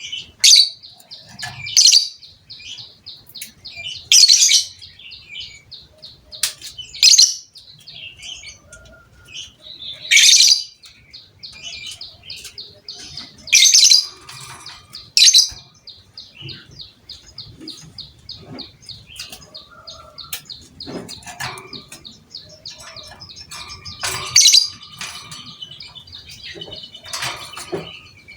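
Lovebird singing a long, rapid chattering trill (the 'ngekek' song), broken every few seconds by loud sharp calls.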